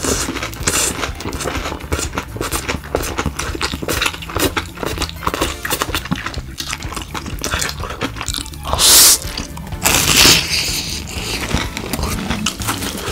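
Background music under crunching and chewing of a fried breaded cheese pork cutlet, with many short crisp crunches and two louder bursts about nine and ten seconds in.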